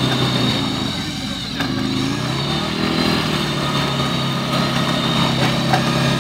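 Side-by-side UTV engine working hard as the machine pushes slowly through deep mud. The engine note drops briefly about a second in, climbs back up, then holds steady under load.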